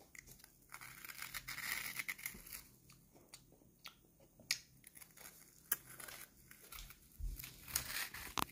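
Freeze-dried Earth jelly being chewed, a scatter of small dry crunches and crackles, busiest about two seconds in.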